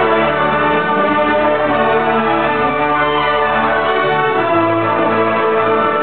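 Symphony orchestra, violins to the fore, playing an arrangement of Greek Christmas carols (kalanta) with full, sustained chords that change every second or so.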